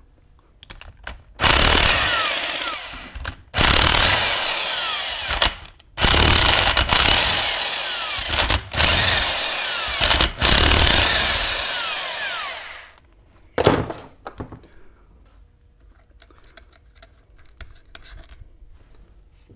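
Impact wrench hammering in about five bursts of one to two and a half seconds, spinning out the bolts that hold the two halves of a Dana 44 Powr-Lok limited-slip differential case together. Light metal clicks follow as the loosened bolts are lifted out by hand.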